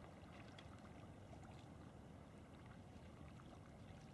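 Near silence: faint water sounds around a sea kayak on the move, with a few tiny ticks.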